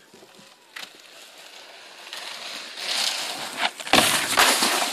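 Snowboard hissing across snow, building louder, then knocking onto and scraping along the hull of an overturned canoe about four seconds in.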